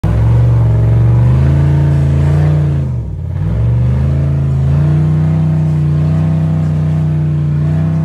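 Rock bouncer buggy's engine revving hard under load while climbing a near-vertical rock ledge. The revs drop briefly about three seconds in, then climb back and hold high.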